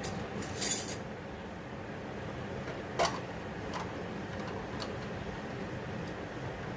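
A metal spoon scraping and clinking against a ghee container and a kadhai as ghee is spooned into the pan: a short scrape just under a second in, a sharp clink about three seconds in, then a few light taps.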